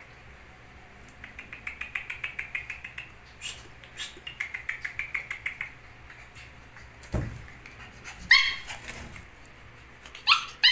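Belgian Shepherd puppies on a hard floor: two quick runs of rapid clicking, then a loud short puppy bark a little past the middle and another short yip near the end.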